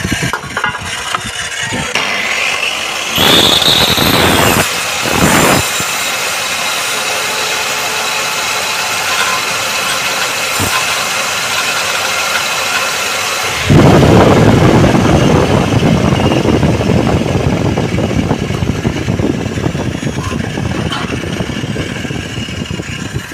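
Electric miter saw running and cutting aluminium profile. There are two short louder stretches a few seconds in, the first with a high whine, then a sudden, louder, harsher stretch just past halfway that slowly fades.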